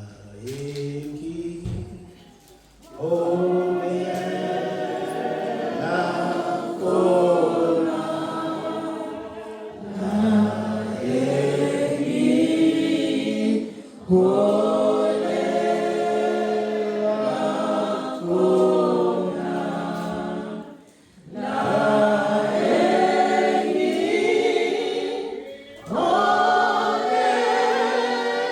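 Congregation singing a gospel chorus together in long phrases, with short breaks for breath between them. A lone voice starts it, and the group joins in about three seconds in.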